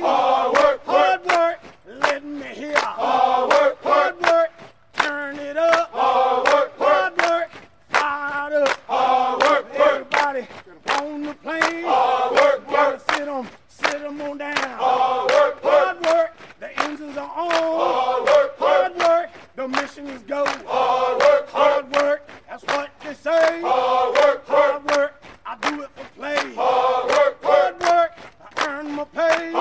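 Many voices chanting together in rhythmic phrases, over a steady beat of sharp clicks.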